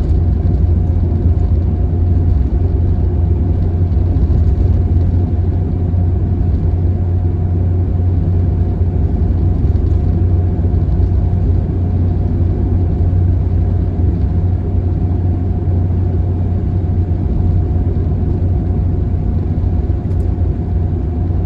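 Steady road and engine noise of a van cruising along a highway, heard from inside the cabin: a deep, even rumble with a faint steady whine above it.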